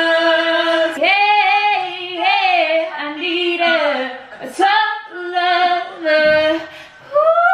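Two women singing loudly, unaccompanied, in long held notes that slide up and down in pitch.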